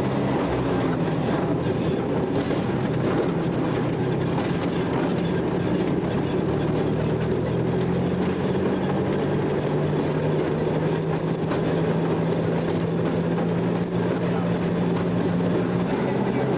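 Railroad speeder (motorized track car) running down the track: a steady engine drone with rumbling wheel noise on the rails.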